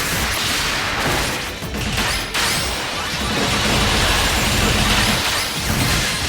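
Battle sound effects of a called-out "Meteor Break" attack: a dense, continuous run of crashing, smashing impacts and whooshes over music.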